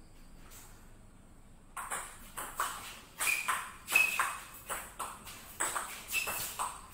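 Table tennis rally: the ball clicking off the bats and bouncing on the table in a quick back-and-forth, about two to three sharp taps a second, beginning about two seconds in.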